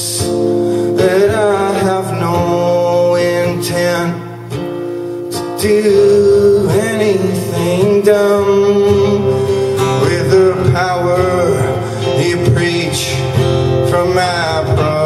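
Live acoustic guitar strummed, with a man singing over it. The music drops back briefly a little past four seconds in, then comes back in fully.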